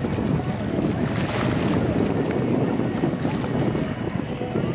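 Pontoon boat motor running steadily, mixed with wind buffeting the microphone and water noise.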